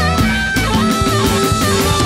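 Blues band playing: electric guitar lead with bent notes over drums and bass.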